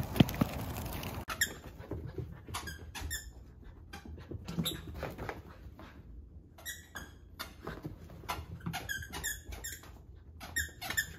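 Squeaky dog toy squeaking over and over as a mini goldendoodle puppy mouths and chews it: short, high squeaks in quick clusters with short gaps between. A couple of sharp knocks come at the very start.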